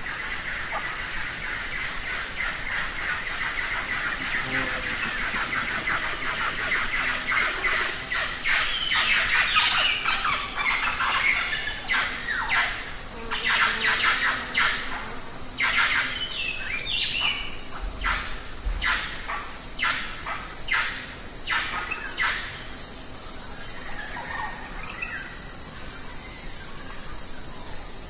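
Birds chirping and calling in quick, repeated notes, busiest through the middle, over a steady high insect drone.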